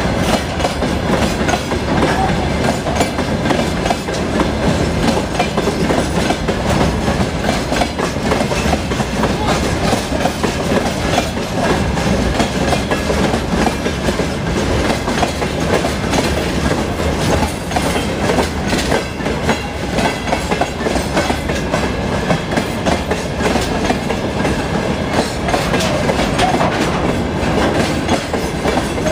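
Railway wagons rolling past at close range, their wheels clattering steadily over the rail joints.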